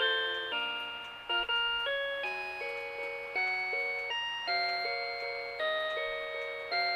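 1992 Rhythm Clock "Melody Box Eight" melody alarm clock playing one of its classical tunes, in a tone unlike a plain electronic beep. A melody runs over chords, each note struck and then fading.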